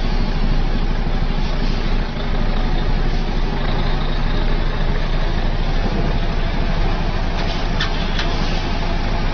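Truck engine running steadily with a low, even hum, with a few brief clicks about seven to eight seconds in.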